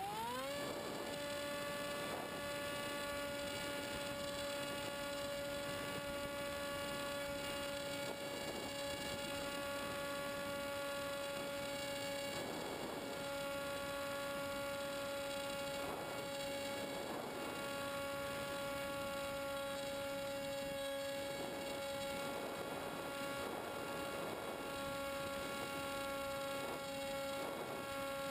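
Electric motor of a Multiplex EasyStar model plane spooling up quickly, then running steadily at full throttle: a steady whine with a strong hum beneath it. Now and then, soft gusts of wind hit the onboard microphone.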